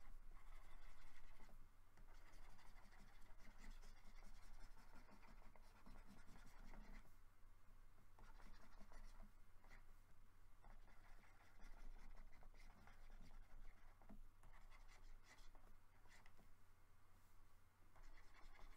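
Faint scratching of a stylus on a graphics tablet, in short irregular strokes, over a low steady hum.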